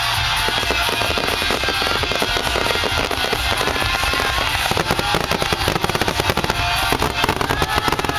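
Fireworks crackling and popping in rapid, dense salvos over music with a steady beat. The crackle thickens about halfway through.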